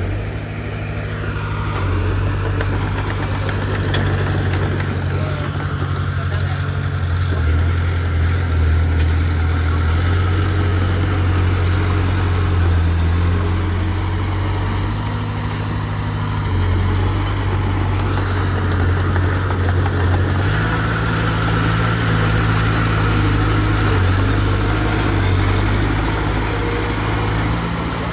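Heavy earthmoving machine's diesel engine running, its pitch stepping up and down several times.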